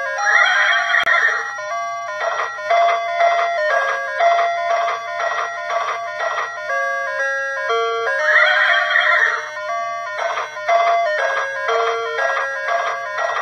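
Ice cream van's chime playing its tinkling tune, a short melody that repeats about every eight seconds, each round opening with a quick flurry of high notes.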